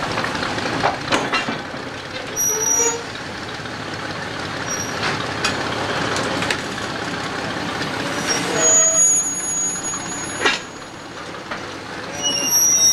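Small 0-4-0 steam locomotive's steel wheels rolling slowly along ramp rails: clanks and knocks, several short high squeals and one longer squeal near the middle, over a steady engine running.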